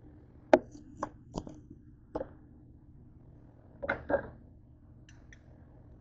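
Knife and fork knocking on the countertop cutting surface while cutting up a cooked chicken breast. There are four sharp knocks in the first two seconds or so, two more close together about four seconds in, and a couple of faint clicks near the end.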